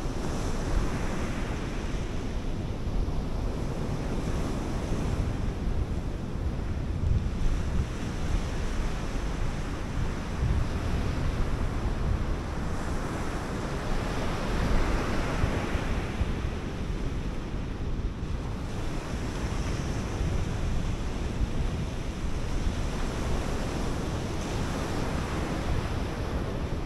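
North Sea surf breaking on a sandy beach, rising and falling in slow surges, with wind buffeting the microphone in a low rumble.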